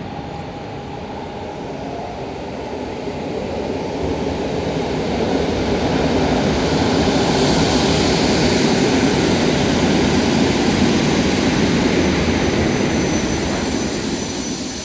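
A yellow-and-blue SKM suburban electric multiple unit passing along the platform track: steady wheel-and-rail running noise that builds as the train nears, is loudest for several seconds while its cars go by, and eases off near the end. A thin high-pitched whine comes in near the end.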